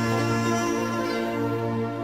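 Background music of slow, held tones over a steady low note.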